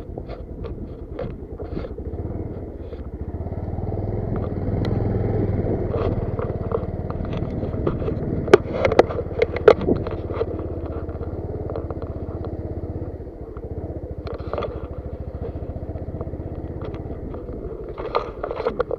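Motorcycle engine running steadily while riding, swelling a little a few seconds in and easing off about two-thirds of the way through. A few sharp knocks and rattles come around the middle.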